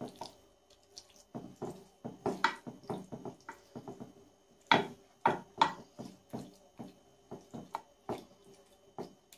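Spatula spreading thick minced-meat sauce in a glass baking dish: irregular soft wet slaps and taps against the sauce and glass, a few louder strokes about halfway through.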